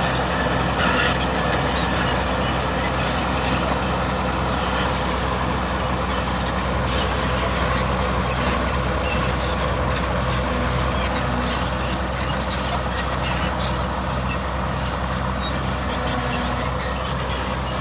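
Bulldozer's heavy diesel engine running steadily under work, a deep even hum, with scattered sharp clicks and knocks over it.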